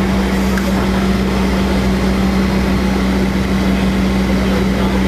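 Excavator engine running steadily while it works a tiltrotator, with a constant low hum and no change in speed.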